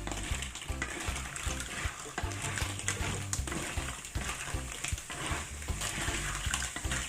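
Clams sizzling in a hot pan with onion and ginger, stirred with a utensil that clicks against the pan now and then.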